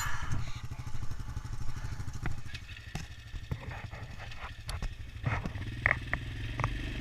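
ATV engine idling, a steady low pulsing, with scattered short clicks and knocks over it.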